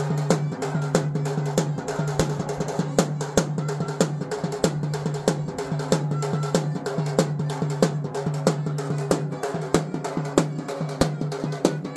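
Procession-style folk band: two large strapped double-headed drums beaten in a fast steady rhythm, under a shehnai playing a melody over a steady low drone.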